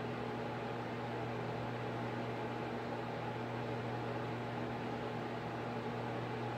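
Steady electrical hum with two constant low tones over an even hiss, unchanging.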